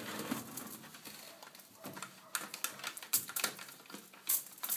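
Scattered sharp plastic clicks and knocks from handling a Philips portable record player as its detachable speaker is unlatched and taken out of the case.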